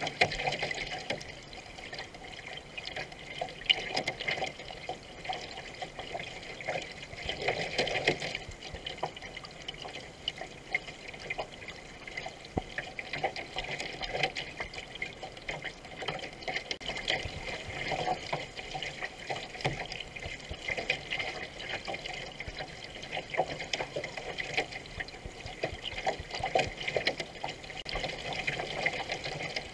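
Water gurgling and splashing along the hull of a racing canoe under way, with irregular splashes from the paddle strokes.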